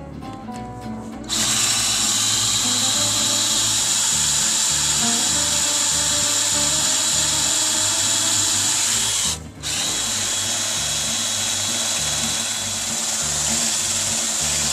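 Electric drill with a mixing paddle running steadily, stirring thick concrete patching mix in a bucket. It starts about a second in, stops briefly about two-thirds of the way through and starts again. Background music plays underneath.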